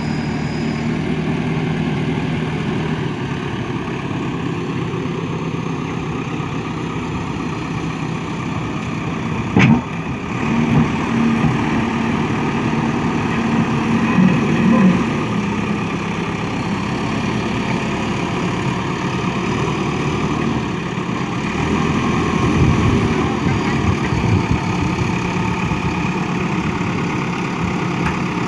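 JCB 3DX backhoe loader's diesel engine running steadily at low revs as the machine works its front loader bucket. A single sharp knock comes about ten seconds in.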